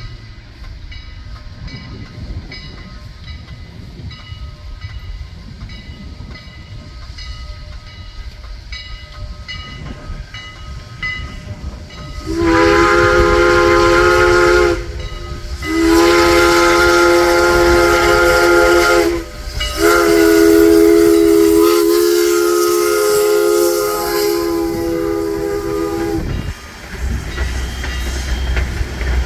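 Steam locomotive 89's Pennsylvania-style three-chime whistle blowing three long blasts for the crossing, the last one the longest. Faint regular ringing tones come before it, and the low rumble of the approaching train rises near the end.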